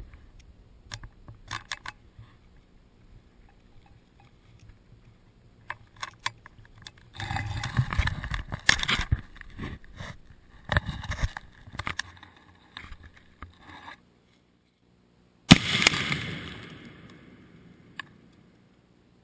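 Tannerite detonating: one sharp, very loud blast about three-quarters of the way through, dying away over about two seconds. Before it, rustling and knocks of the action camera being handled and set down in the grass.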